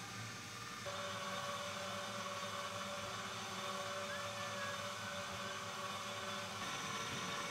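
Small electric cement mixer running, its drum turning a batch of mortar: a steady motor whir with a hum that gets louder about a second in.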